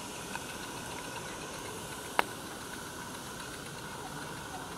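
A small live steam garden-railway locomotive running as it pulls its coaches away: a steady hiss with faint light ticks. One sharp click about two seconds in is the loudest sound.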